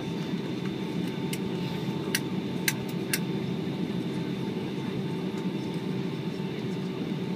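Cabin noise inside a Boeing 757-200 on the runway after landing: a steady engine hum with a constant whine, and a few sharp clicks about two to three seconds in.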